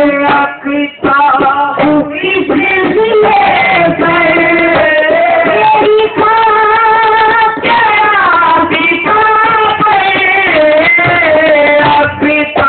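A high voice singing a Sufi devotional song in Urdu, drawing out long held and bending notes, with a short break about a second in.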